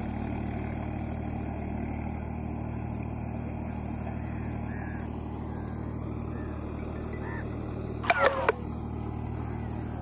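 Tractor's diesel engine running steadily while ploughing, a low even hum. A short loud call cuts in about eight seconds in.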